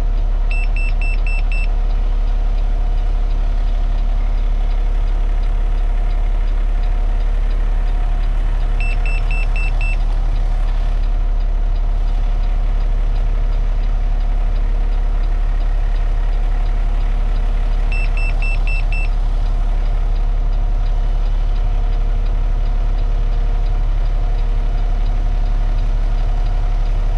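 Refuse truck engine idling steadily. Three times, about nine seconds apart, a quick run of five short high-pitched beeps sounds over it.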